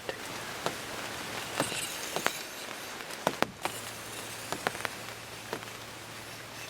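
Raindrops tapping irregularly on the fabric of a pop-up ground blind over a steady hiss of rain, with about a dozen sharp ticks, the loudest bunched in the middle.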